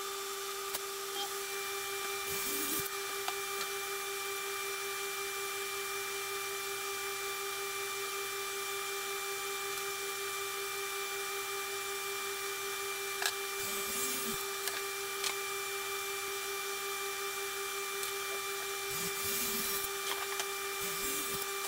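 Shop dust collector running: a steady hum with a high whine over a hiss, and a few soft knocks of boards being handled.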